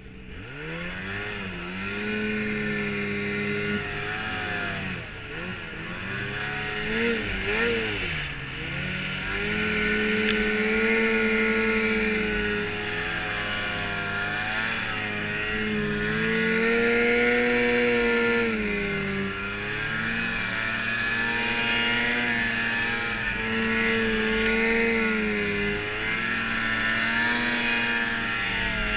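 Ski-Doo Rev XP 800R snowmobile's 800 cc two-stroke twin engine running under throttle, its pitch rising and falling every few seconds as the rider works the throttle, with quick blips about a quarter of the way in.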